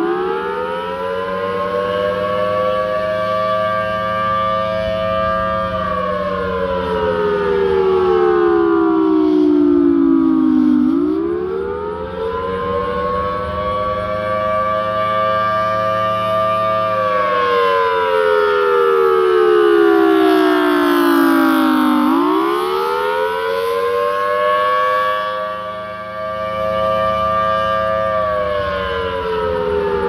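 Federal Signal Thunderbolt 1000T rotating outdoor warning siren sounding a wail for its monthly test. The pitch climbs quickly, holds for about six seconds, then slides down, repeating about every eleven seconds: three climbs in all, over a steady low hum.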